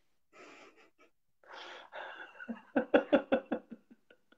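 A man laughing: a couple of breathy exhales, then about three seconds in a quick run of short 'ha-ha' pulses, several a second, that trails off.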